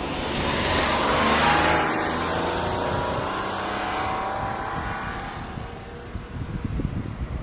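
A vehicle passes close by: its noise swells to a peak about a second and a half in, then slowly fades.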